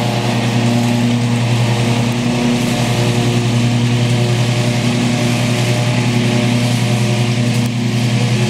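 John Deere riding lawn mower's engine running at a steady speed as the tractor drives across the lawn.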